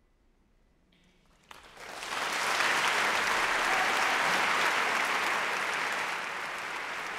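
Audience applause, starting suddenly about a second and a half in out of near silence, swelling quickly to a full, steady clapping.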